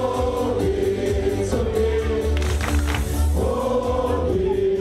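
Party music: a song sung by many voices together, in long held notes over a heavy, steady bass.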